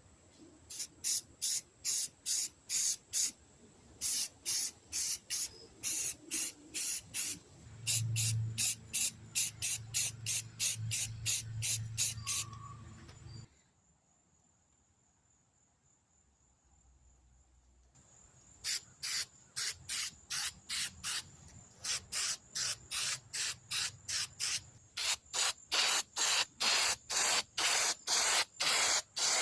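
Spray paint being applied to metal lathe parts in many short hissing bursts, about two a second. They stop for a few seconds of near silence around the middle and then resume.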